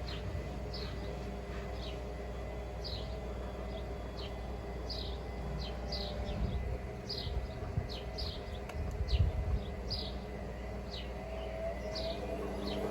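Hotpoint WMFUG742 washing machine in its final spin, the drum motor running with a steady hum and a slightly wavering whine, and a few knocks of the bricks in the drum. Near the end the whine rises in pitch as the spin speeds up. Short high chirps repeat all through it.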